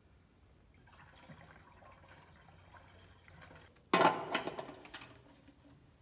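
Ethanol-free gasoline being poured from a metal gas can into the Toro Power Max 828 snowblower's metal fuel tank: a faint trickle and splash, then a sudden loud clatter about four seconds in that dies away over a second or so.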